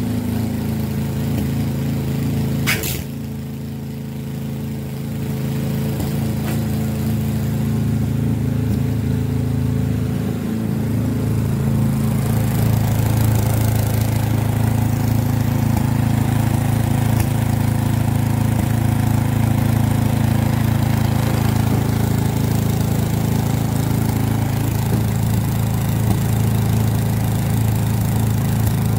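Toro SnowMaster 824 QXE snowblower's single-cylinder engine running steadily while the machine stands still. There is one sharp click about three seconds in, and the engine note grows fuller and louder about eleven seconds in.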